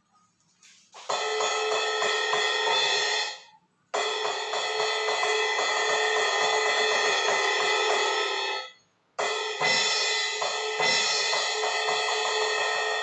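Electronic drum kit played through its sound module: a sustained crash cymbal sound rings over quick drum strikes. It cuts off sharply twice and starts again each time.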